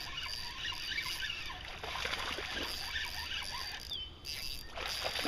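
Topwater mouse lure sputtering and gurgling across the pond surface as it is reeled in: a run of small, irregular splashes.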